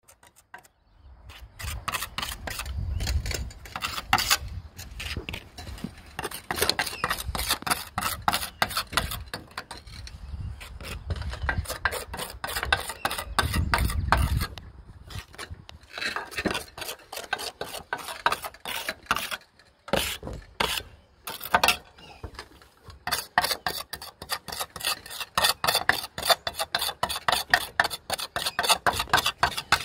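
Steel pointing trowel scraping and smoothing flexible pointing compound along the edges of roof ridge capping, in quick repeated strokes.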